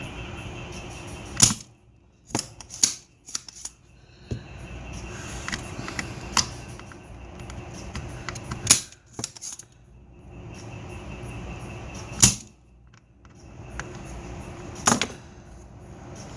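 Sharp clicks and knocks of hand tools working on a car amplifier's circuit board, about a dozen at irregular intervals, over a steady background noise.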